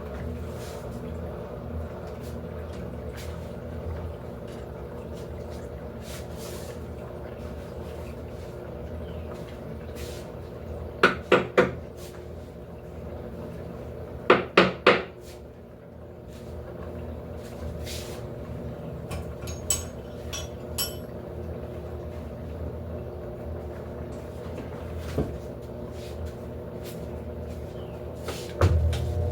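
Electrolux LTE08 top-loading washing machine running with a steady motor hum. Twice near the middle comes a quick run of three sharp knocks or clinks.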